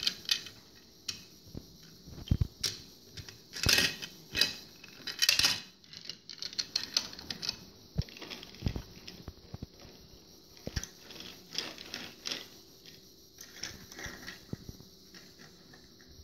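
Small plastic toy cars and figurines clicking, knocking and scraping against a tabletop as a child handles them, in scattered taps with a few louder scrapes.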